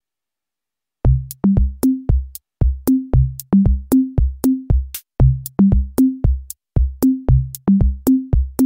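Electronic background music: a drum-machine beat of deep, pitched bass-drum hits stepping between a few low notes in a quick repeating pattern, starting about a second in.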